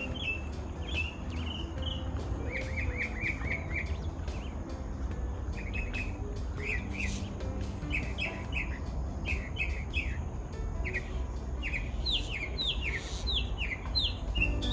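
Garden birds chirping and calling: short high chirps throughout, a quick run of about six notes around three seconds in, and a series of falling notes near the end, over a low steady rumble.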